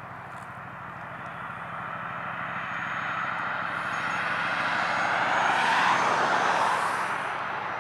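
A passing vehicle's noise swells to a peak about six seconds in and then begins to fade, over a steady low hum.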